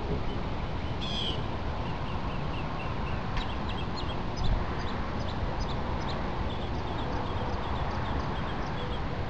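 Steady outdoor background noise with many faint, short, high bird chirps scattered through it, and a brief low bump about four and a half seconds in.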